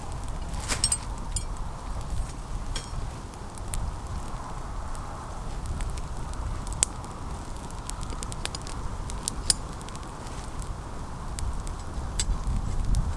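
Wood campfire crackling, with sharp pops scattered irregularly throughout, over a low steady rumble.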